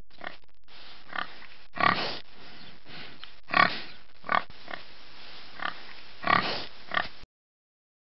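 Domestic pigs grunting and oinking: about ten short grunts over a steady background hiss, the loudest about two, three and a half and six seconds in. The sound cuts off abruptly about seven seconds in.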